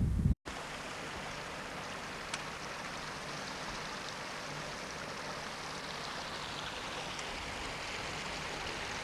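Shallow stream rushing steadily over stones, an even hiss of running water. Wind buffets the microphone for a moment at the very start, before a brief break in the sound.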